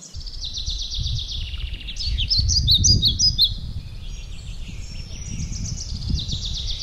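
Small songbirds singing: a fast trill near the start, sharper chirps about two to three seconds in, then another trill. A low, uneven rumble on the microphone runs underneath.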